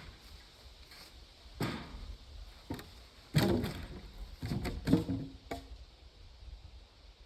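A series of irregular knocks and clunks, about six in all, with the loudest about three and a half and five seconds in.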